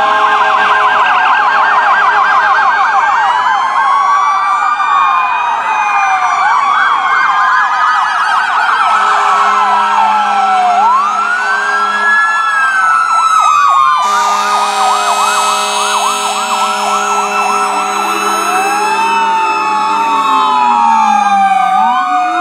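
Sirens of several ambulances and fire trucks going by at once, overlapping: slow wail sweeps rising and falling over fast yelp warbles. A brighter, harsher layer cuts in suddenly about fourteen seconds in.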